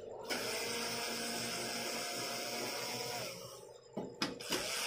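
Cordless electric screwdriver running for about three seconds, backing out screws, its motor whine steady before winding down. A couple of clicks follow, then it spins up again near the end.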